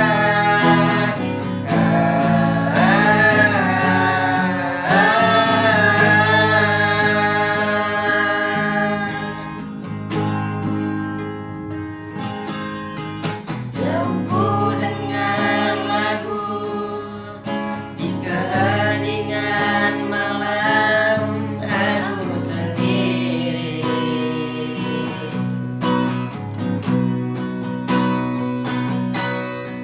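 A person singing a song over strummed acoustic guitar chords. The voice sings in long held phrases and drops out twice, while the guitar carries on.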